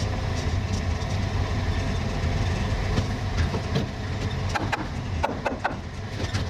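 An engine running steadily at an even idle, with a few sharp clicks and knocks a little past the middle.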